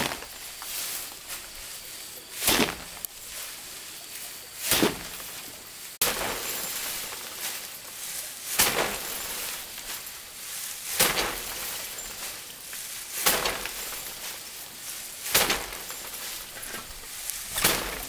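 Bundles of harvested rice stalks being beaten by hand against a threshing frame to knock the grain loose: a sharp whack about every two and a half seconds, with the rustle of stalks and scattering grain between strikes.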